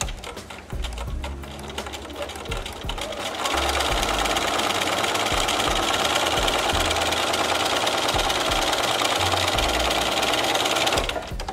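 Bernina sewing machine stitching through layered cotton fabric. It runs slower and unevenly at first, then fast and steady from about three seconds in, and stops near the end.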